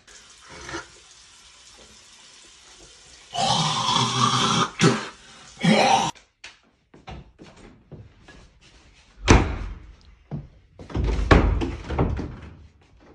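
Irregular knocks and thuds in a small room, with a loud stretch of rustling noise lasting a couple of seconds about three and a half seconds in, and further louder knocks near the end.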